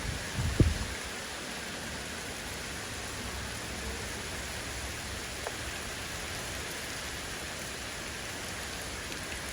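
Heavy rain pouring down steadily, with a short low thump about half a second in.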